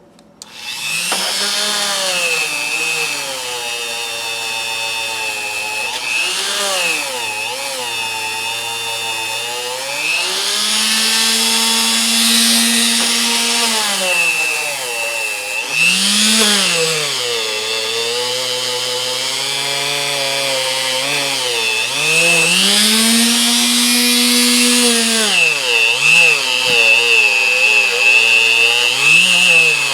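Power tool with a wire wheel starting up about half a second in and running, its motor pitch dropping and recovering repeatedly as steel crimpers are pressed against the wheel to clean them.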